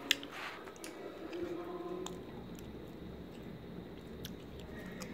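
Close-up chewing of pomegranate arils, with small moist crunches and clicks as the hard seeds are bitten, and one sharp click just after the start.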